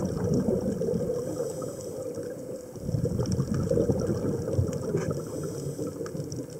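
Underwater bubbling and gurgling in two bouts, the second starting about three seconds in, with faint scattered clicks.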